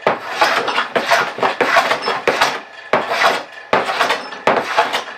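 Hand plane taking shavings off wooden door cleats to bring them flush, in about five quick scraping strokes.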